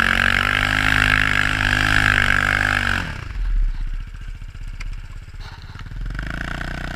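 Off-road vehicle engine revving hard with a high whine for about three seconds. The throttle then shuts abruptly and the engine falls to low, pulsing revs, picking up a little near the end.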